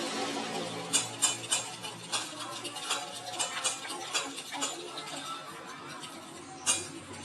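Slime mixture being stirred in a container: irregular sticky clicks and taps of the stirring utensil working through it, several a second.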